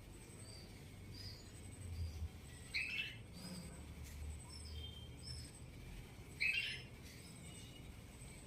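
Red-vented bulbuls calling: two loud short calls, about three seconds and six and a half seconds in, with faint short chirps scattered between.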